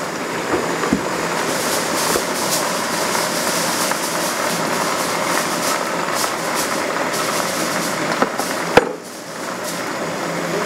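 Fresh spinach leaves sizzling in a hot frying pan as they are stirred and turned with wooden chopsticks, a steady frying hiss with small crackles and one sharp tap about nine seconds in.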